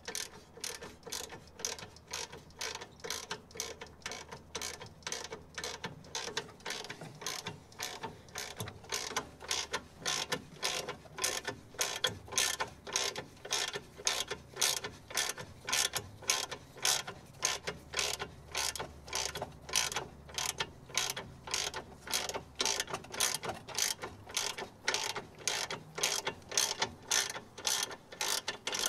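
Hand ratchet wrench clicking as it is swung back and forth on a suspension bolt, in an even rhythm of about two strokes a second.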